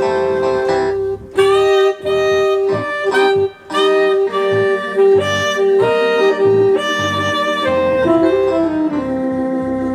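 Electronic keyboard playing a saxophone-voice melody in short, separate notes over an organ backing with a little twang and a bass line. The melody settles onto a long held note near the end.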